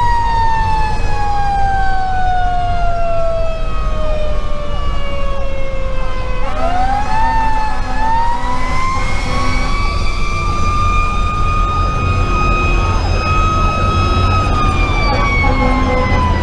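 Federal Q2B mechanical siren slowly winding down, then spun back up about six seconds in, climbing to a high steady wail and starting to fall again near the end. Heard from inside the fire engine's cab over the low rumble of its Detroit Series 60 diesel and the road.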